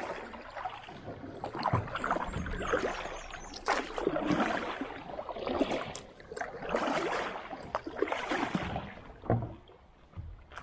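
Double-bladed kayak paddle stroking through river water, each blade dip splashing, in a series of strokes about every one to two seconds that grow quieter near the end.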